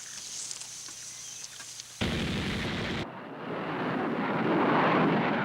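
Anti-aircraft gunfire and blasts. After a faint hiss, a sudden loud burst comes about two seconds in and lasts about a second, then a rumbling blast swells up to its loudest near the end.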